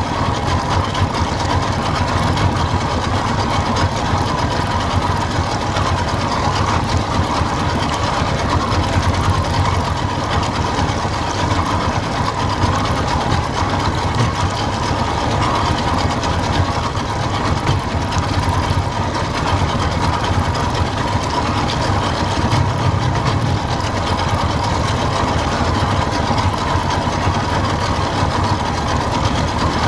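Boat motor running steadily at low trolling speed, an even engine hum with no change in pitch or level.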